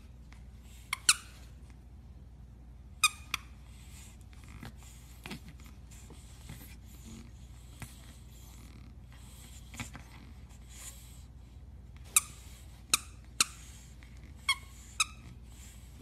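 Short, sharp high squeaks from two pugs at play, a fawn pug mouthing a black pug puppy. A pair comes about a second in and another about three seconds in, then five more in quick succession near the end, over a faint steady hum.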